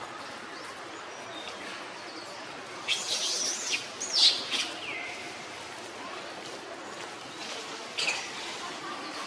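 High-pitched chirping animal calls over a steady outdoor background hiss: a loud run of chirps about three seconds in that ends in a downward slide, and a shorter chirp about eight seconds in.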